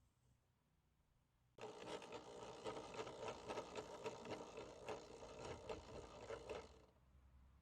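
Electric landing gear drive for a semi-trailer, its electric motor and worm gear running to wind the landing legs. It starts about a second and a half in, whirs with a fine rapid rattle, and stops near the end.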